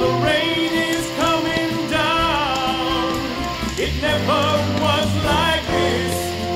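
Music: a song with a singing voice over instrumental backing.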